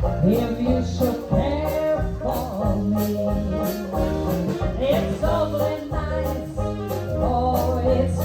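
Jazz band playing an upbeat number with a singer, over a steady pulsing bass beat.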